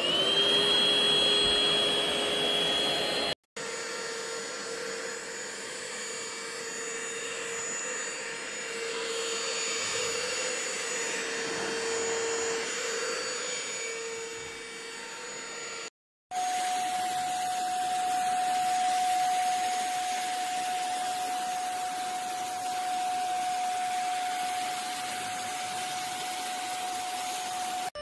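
Handheld dust-mite vacuum cleaners running steadily against fabric, each with a constant motor whine. The first reaches full speed right at the start. The sound cuts out abruptly twice and comes back each time as a different machine with a different pitch.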